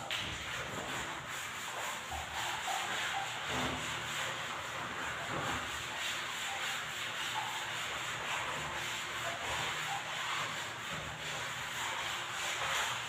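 Continuous hand scrubbing on a glass shower screen, a steady rasping rub of strokes going back and forth.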